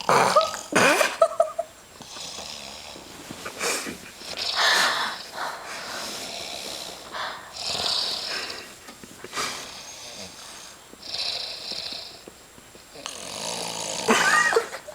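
Heavy snoring in slow, separate breaths, one every two to three seconds, loudest right at the start.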